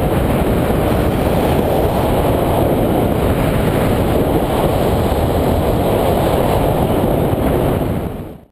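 Wind rushing over the microphone of a camera mounted on a hang glider in flight: a steady, low, noisy rush of airflow that fades out at the very end.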